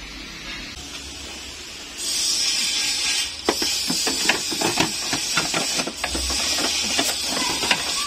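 A low steady hum, then about two seconds in, background music starts: a steady high hiss with quick, irregular clicks over it.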